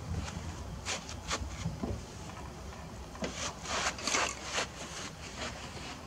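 A homemade kayak built from a blue plastic 55-gallon drum and PVC pipe is gripped and lifted by one person, giving scattered knocks, bumps and rubbing of plastic. The handling noise is busiest about three to four and a half seconds in.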